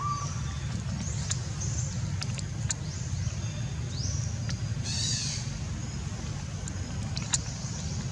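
Outdoor ambience: a steady low rumble, with birds chirping high over it and a short rising-and-falling call about five seconds in.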